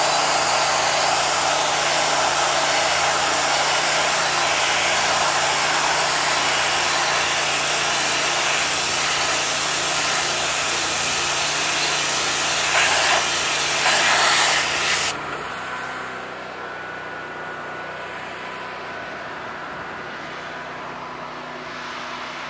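Hot-water pressure washer jet blasting paint off a steel plate: a loud, steady hiss of spray that cuts off suddenly about fifteen seconds in. A quieter steady machine hum is left after it.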